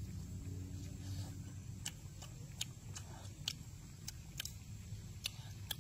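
Chewing and lip-smacking on braised pork leg: a run of about ten sharp, irregularly spaced wet clicks starting about two seconds in, over a low steady hum.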